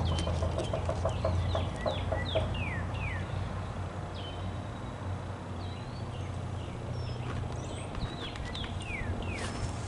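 A chicken clucking in a quick run of calls during the first couple of seconds, while a songbird calls repeatedly with short downward-slurred whistles. A low hum fades out about two seconds in.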